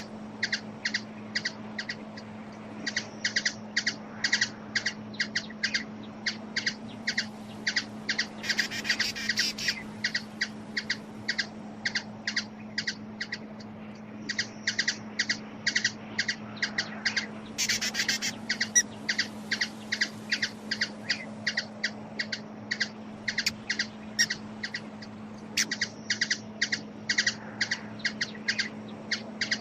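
Hummingbird giving a long series of short, sharp, high chip calls, several a second, breaking twice into a quicker rattling run; a steady low hum runs underneath.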